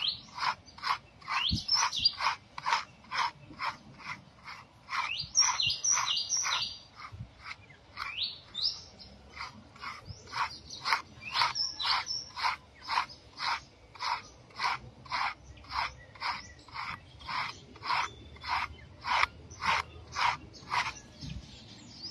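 Birds chirping, over an even train of short, sharp sounds about twice a second that continues without a break.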